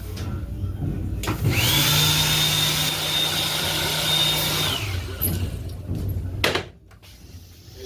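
Train restroom toilet flushing: a motor whine that rises as it starts, then holds steady with a rushing hiss for about three seconds before cutting off, followed by a sharp click.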